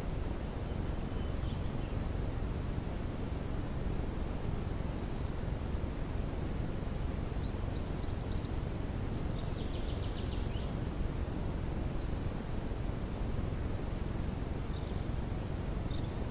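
Steady low hiss and rumble from a camera trap's microphone, with faint high bird chirps scattered throughout and a brief rapid trill about ten seconds in.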